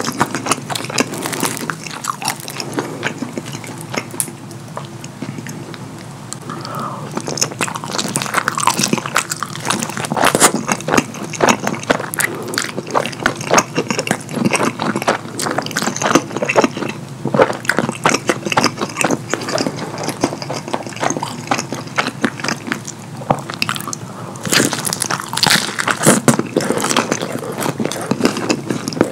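Close-miked chewing of cheese-sauce-dipped croissant-crust pepperoni pizza: wet mouth smacking and crunching in quick, dense clicks. It is lighter in the first quarter and busiest in the middle and near the end.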